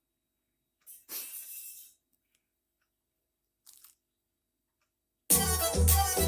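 A brief crunchy rustle about a second in and a faint click, then a song starts about five seconds in, playing loudly with heavy bass through an F&D T60X multimedia tower speaker.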